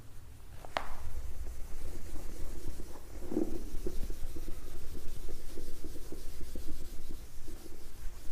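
Whiteboard being wiped clean by hand: a steady rubbing across the board's surface, after a short click just under a second in.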